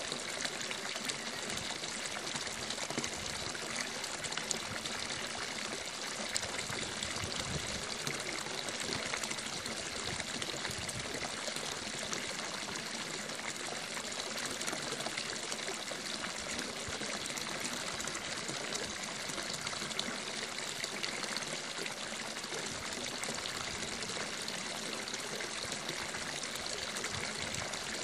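Water running and trickling steadily, an even splashing hiss that goes on without pause or change.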